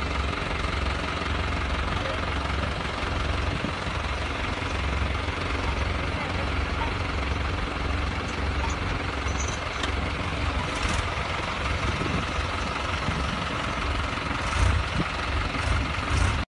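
New Holland tractor diesel engines running steadily.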